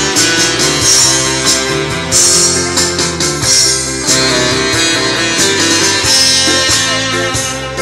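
Live music from a one-man entertainer's set: a song with guitar to the fore over a steady beat.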